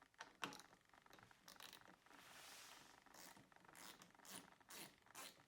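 Faint raspy strokes of a ratchet wrench, several in a row about half a second apart in the second half, loosening the nut on the car battery's negative terminal clamp.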